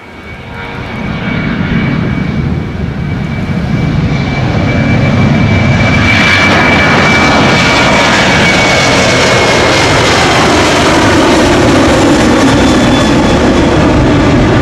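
Jet engines of a Lion Air Boeing 737 spooling up to takeoff thrust on the takeoff roll, building over the first few seconds to a loud steady noise. A high whine runs through it and falls slightly in pitch as the airliner passes.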